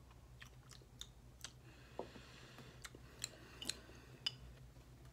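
Faint mouth sounds of someone sipping a drink and tasting it: scattered wet clicks and lip smacks, about a dozen spread over a few seconds.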